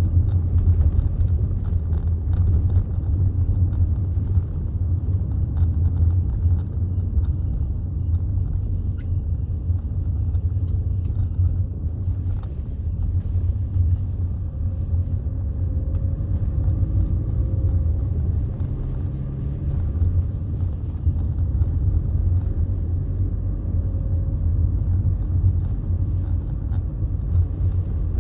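A BMW 320d's 2.0-litre four-cylinder turbodiesel and its road noise while driving: a steady low rumble. About halfway through, faint tones rise briefly as the engine picks up.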